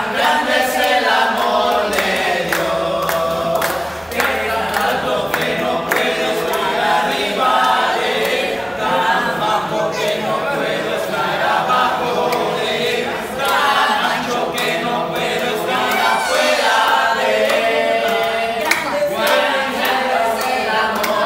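A group of people singing together without instruments, clapping their hands along with the song.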